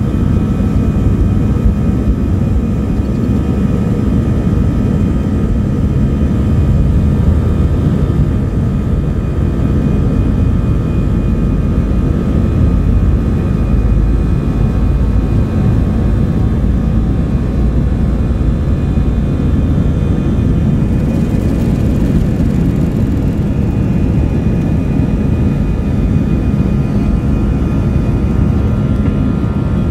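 Airbus A320 jet engines at takeoff power, heard from inside the cabin. A loud, steady rumble with several whining tones above it continues as the airliner rolls down the runway, lifts off and climbs away.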